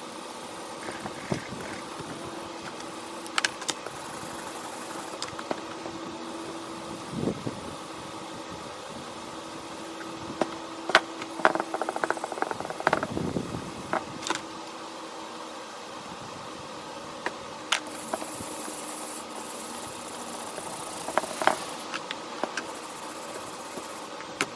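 A steady mechanical hum from a running workshop machine, with scattered sharp clicks and knocks on top of it. A short burst of clatter comes around the middle.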